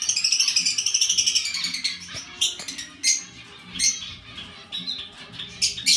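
Pet birds chirping: a rapid high trill over the first couple of seconds that rises then falls, followed by scattered short, sharp chirps.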